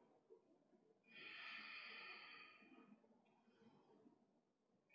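A woman's single audible breath, lasting about two seconds from about a second in, taken while she holds a plank. The rest is near silence.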